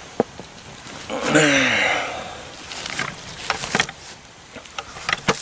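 A man's breathy, wordless vocal sound with a falling pitch about a second in, then a few sharp clinks of a spork against a steel canteen cup as he scoops up mashed potatoes.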